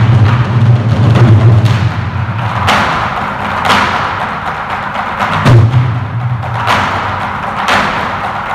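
An ensemble of Korean buk barrel drums beaten with wooden sticks: a fast, dense roll for about the first two seconds, then single sharp strokes about a second apart, some landing with a deep boom.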